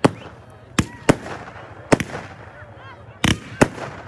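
Aerial firework shells bursting overhead: about seven sharp bangs at uneven gaps, the heaviest a doubled bang about three seconds in.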